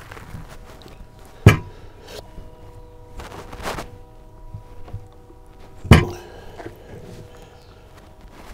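Two sharp knocks about four seconds apart, with a few softer knocks between them: wooden mask blanks and a metal bar clamp being handled and set down on a wooden work table.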